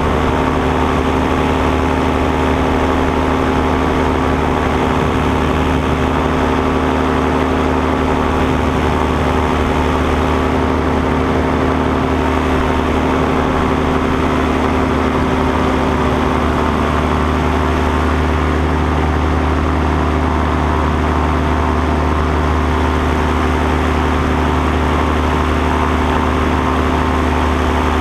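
Paramotor engine and propeller running at a steady throttle in flight, heard from the pilot's seat as a constant drone with no change in pitch.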